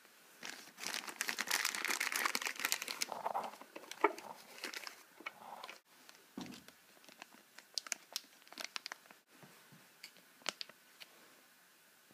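A plastic bag of nuts crinkling as it is handled: a dense run of crackling for the first few seconds, then scattered crinkles and clicks.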